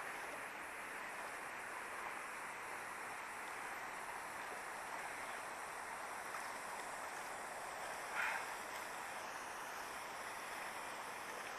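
River water rushing steadily over a low weir and shallow rapids, an even noise with no breaks. About eight seconds in comes one short, louder burst of noise.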